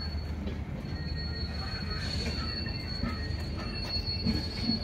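LHB passenger coaches rolling past with a steady high-pitched squeal from the running gear over a low rumble of wheels on rail.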